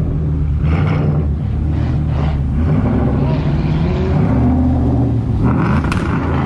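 Ford Mustang GT's V8 running steadily at low revs as the car creeps slowly past.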